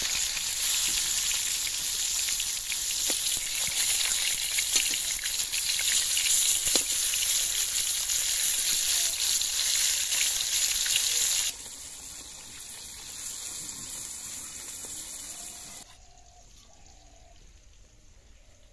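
Pieces of japani puti fish sizzling in hot oil in an iron kadai, with a few clicks and scrapes of a steel spatula. The sizzle drops sharply about eleven seconds in and dies away about sixteen seconds in.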